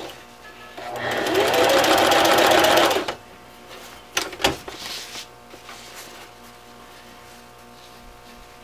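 Electric sewing machine stitching fold-over elastic binding onto PUL fabric: it runs for about two seconds, speeding up at the start, then stops. A few sharp clicks follow about a second later, then only a faint steady hum.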